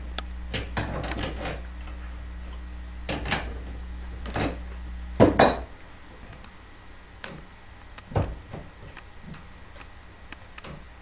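Scattered metal clicks and knocks of the resizing die being turned and set in a reloading press, with the loudest clunk about five seconds in. A steady low hum underneath stops just after that clunk.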